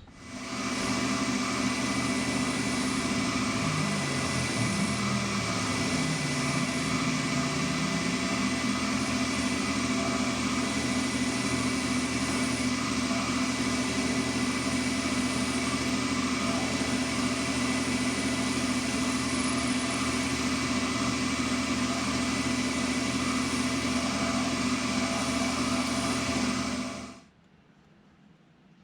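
Metal lathe running steadily under power while cutting an O-ring counterbore in the end of a steel hydraulic fitting; it starts about half a second in and shuts off near the end.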